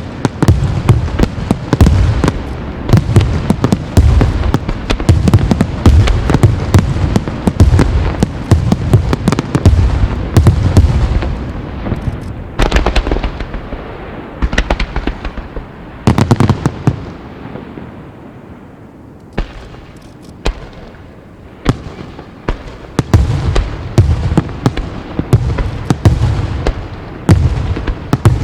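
Wide starmine fireworks barrage: rapid, overlapping booms and crackles of shells launching and bursting. About halfway through it thins to a few scattered bangs, then builds back into dense volleys near the end.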